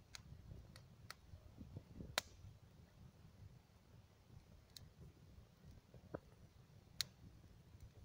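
Bonfire of dry brush and twigs crackling faintly: a handful of sharp, scattered pops, the loudest about two seconds in and near the end, over a faint low rumble.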